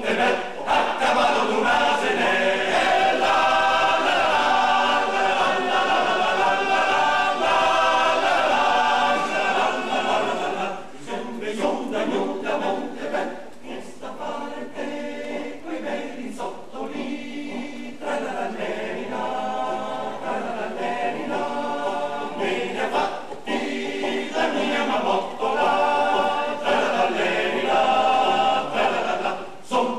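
Male voice choir singing an Alpine folk song a cappella in close harmony. It is loud at first, drops softer about ten seconds in, then swells again near the end.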